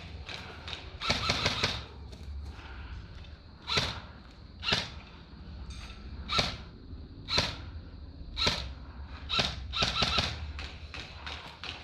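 Airsoft gun firing: a short rapid burst about a second in, then single shots about once a second.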